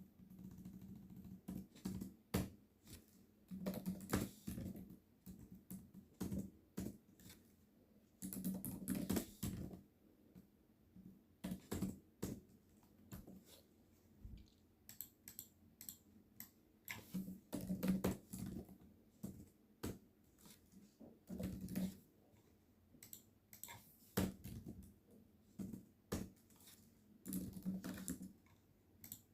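Typing on a computer keyboard in bursts of quick key clicks with short pauses between them.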